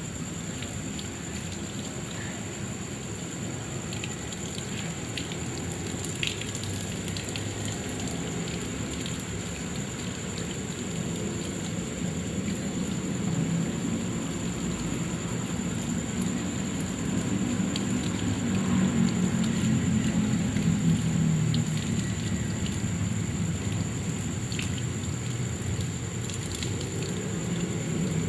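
Water running from a tap and splashing over bare feet and onto a plastic basin below, as the feet are rubbed clean by hand. The splashing gets a little louder in the middle.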